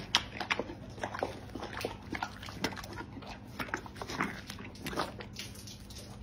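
A horse biting into and chewing a slice of watermelon: irregular wet crunches, a few each second.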